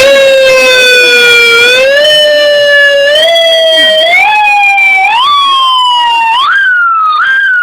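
Electronic car/motorcycle warning siren sounding loudly, switched on abruptly. Its tone climbs in steps: each step glides slowly down and then jumps higher, roughly once a second, rising for about seven seconds.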